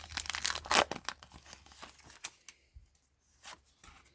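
Foil wrapper of a Pokémon booster pack crinkling and tearing open, busiest in the first two seconds, then a few faint rustles.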